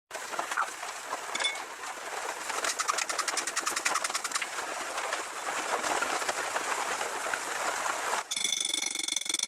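A fast, even run of mechanical hammering, many strikes a second, typical of a power hammer working steel. Near the end it gives way abruptly to a different sound with steady high ringing tones.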